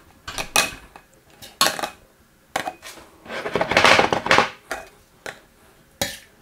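A metal spoon clinking and knocking against a stainless steel pot while ratatouille is spooned into a glass canning jar through a funnel, with a longer scrape about four seconds in.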